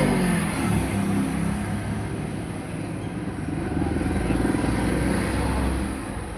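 Engines of motor vehicles passing close by: one engine rises and falls at the start, and a second, louder pass swells in the middle and fades near the end.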